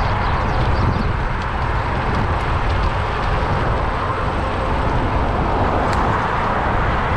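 Steady wind buffeting the microphone on a moving bicycle, mixed with street traffic noise.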